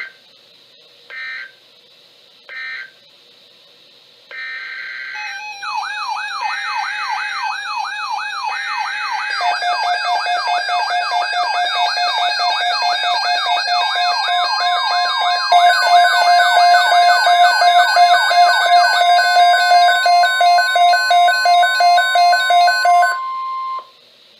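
Emergency Alert System (SAME) tones from a NOAA Weather Radio broadcast. Three short digital squawks close the previous message, then longer digital header squawks begin the next alert. A warbling siren-like alert tone and a pulsing alarm tone layer in, joined by a steady weather-radio alert tone, and all cut off shortly before the next spoken message.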